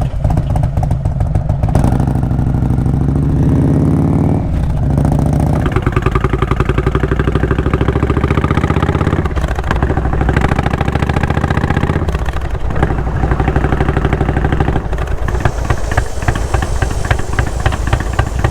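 Indian Springfield's V-twin running through a Freedom Performance aftermarket exhaust while riding. The engine pitch climbs and falls, with a few short dips along the way.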